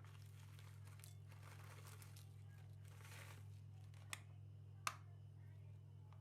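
Soft rustling and handling noises with two sharp clicks, one a little after four seconds in and one about a second later, over a low steady hum.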